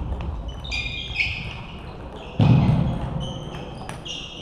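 Table tennis rally sounds in a large sports hall: short high squeaks of shoes on the hall floor, a few sharp ball ticks, and one heavy thud about two and a half seconds in.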